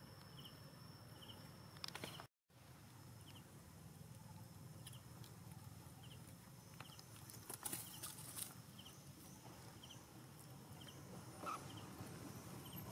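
Quiet outdoor background: faint, short chirps repeating about twice a second over a steady thin high tone, with a few soft clicks and rustles. The sound drops out completely for a moment a couple of seconds in.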